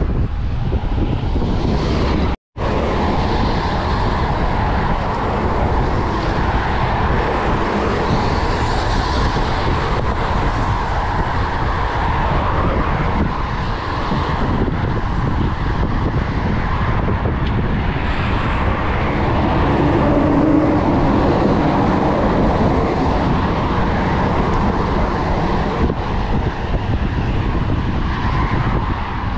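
Steady wind rush on the microphone and road noise from a road bike being ridden, with a sudden brief dropout about two and a half seconds in.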